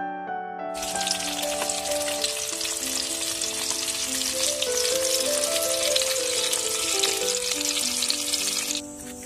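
Salted whole fish frying in a pan: a loud, dense crackling sizzle that starts about a second in and cuts off near the end, with background piano music throughout.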